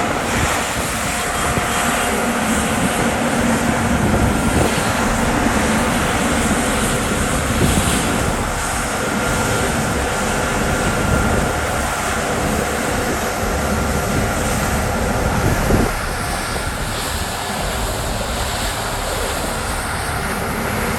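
New Holland CR10.90 combine harvester running: a loud, steady mechanical noise with a faint high whine. It drops a little in level about sixteen seconds in.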